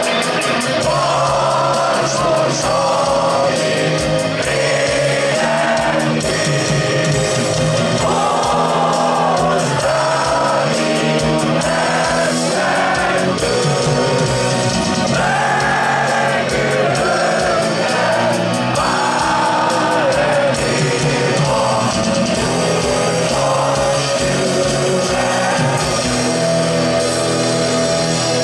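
Live rock band, with electric guitars, bass, drums and keyboard, playing a rock arrangement of a Hungarian anthem with slow, held sung notes.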